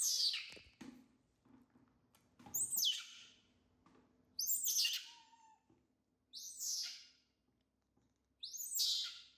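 Baby macaque giving five high-pitched calls, each about a second long and roughly two seconds apart.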